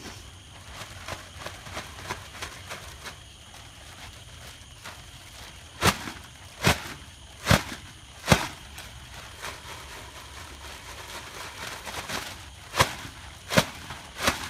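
A large plastic bag shaken and flapped, with faint crinkling and sharp snaps: four loud snaps about a second apart midway, then three more near the end.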